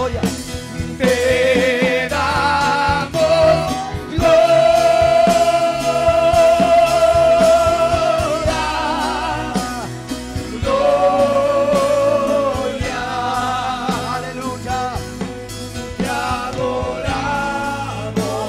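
Gospel worship music: a voice sings long held notes with vibrato over instrumental backing. The longest note lasts about four seconds, starting about four seconds in.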